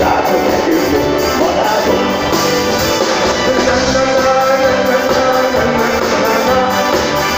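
Live pop band playing on stage, with drums, bass guitar and keyboards; a melody note is held for a couple of seconds in the middle.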